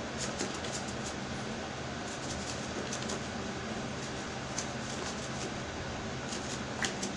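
A steady low mechanical hum, with a few soft, scattered clicks and rustles as plastic-gloved hands salt and turn fish in a bowl.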